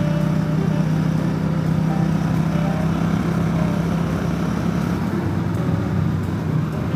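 Motorcycle engine running steadily at highway cruising speed, around 65 mph, with wind and road noise rushing over the microphone. The pitch holds even throughout.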